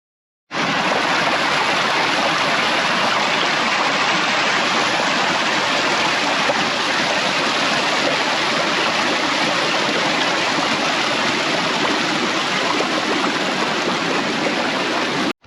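Rushing creek water, a steady even rush that starts suddenly and cuts off abruptly near the end.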